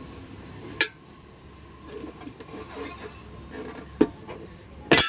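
Metal tyre lever working a stiff tyre off a steel wheel rim: rubber scraping and rubbing, with sharp metal clanks about a second in, at about four seconds, and a louder clank near the end.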